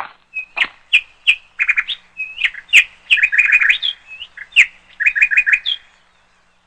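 A bird chirping: short high chirps, some in quick runs of five or six, others single upward-sliding notes, stopping shortly before the end.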